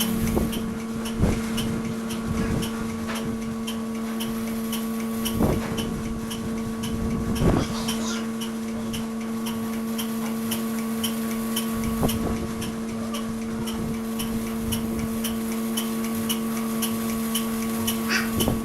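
A machine humming steadily at one pitch, with a regular fast ticking and a few louder knocks.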